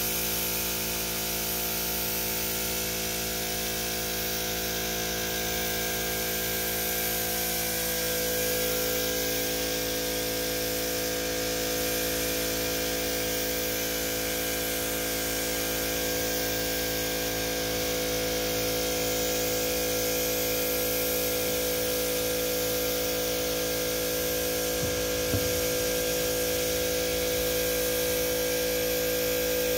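Gravity-feed paint spray gun hissing steadily as it lays a first coat of single-stage paint, over the constant hum of the air compressor feeding it. A higher steady hum comes in about eight seconds in.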